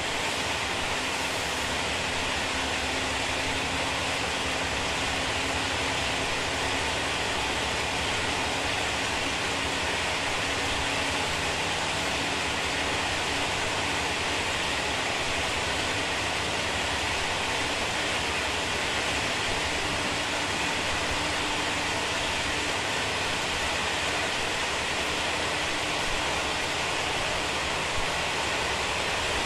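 Steady rushing rumble of a Taiwan Railway SPK32717 ordinary passenger carriage running at about 35–39 km/h, wheel and rail noise with a faint low hum, and a couple of small clicks near the end.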